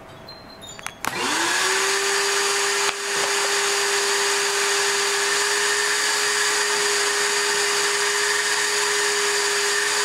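Shop vacuum switched on about a second in, its motor spinning up quickly to a steady whine with rushing air. Its hose is sucking debris out of an air conditioner's condenser unit.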